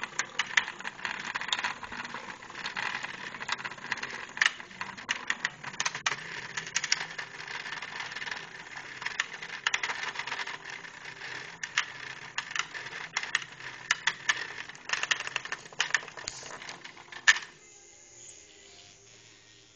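Hexbug Nano vibrating micro-robots buzzing and clattering in a plastic arena, a dense patter of sharp clicks as they rattle against the plastic walls and each other. The clatter stops with a loud click about 17 seconds in.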